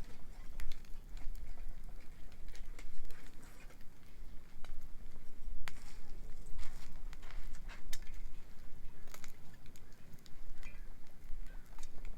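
Wood bonfire crackling, with irregular sharp pops and snaps scattered throughout over a steady low rumble.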